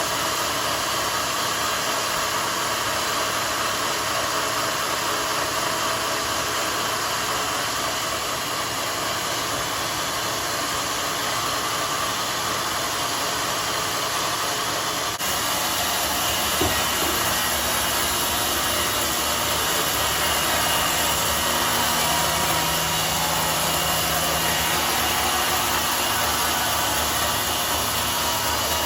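Homemade sawmill running, a steady dense hiss of saw noise over an engine hum. About fifteen seconds in the sound changes abruptly, and a steadier low engine hum stands out from then on.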